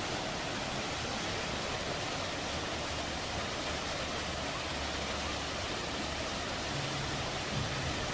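Steady, even rushing hiss with no distinct events; faint low tones come in near the end.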